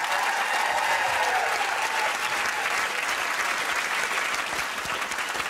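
Studio audience applauding, with cheers and whoops over the clapping in the first couple of seconds.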